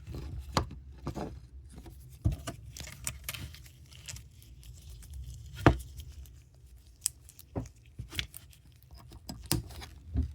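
Hands handling an IDC ribbon cable and scoreboard circuit modules, plugging the cable into the controller module: scattered rustling and light plastic clicks, with one sharper click about halfway through.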